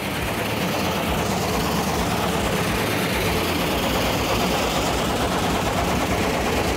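Car engine running hard, spinning a washing machine drum through its gearbox, with a loud, rapid metallic clattering and scraping: a carburetor is caught in the drum, which is scraping on its outer casing.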